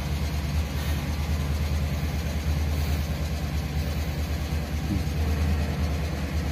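Chevrolet Tahoe V8 idling roughly with an uneven, shaking beat: the sign of an engine misfire.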